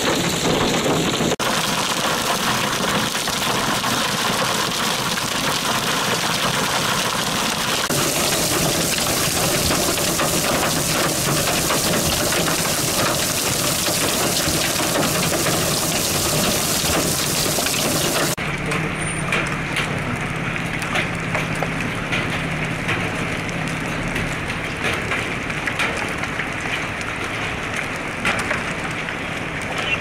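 Heavy rain and hail falling hard on grass and pavement: a loud, steady hiss of impacts. About 18 seconds in it turns duller, a downpour with a low, steady engine hum underneath.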